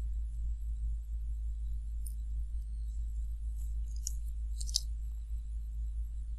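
A few faint, small clicks of a screwdriver working a screw terminal, over a steady low hum.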